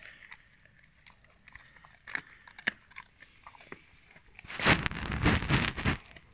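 A Rottweiler chewing a raw lamb's head. Scattered small cracks and clicks, then a loud stretch of crunching on bone about four and a half seconds in.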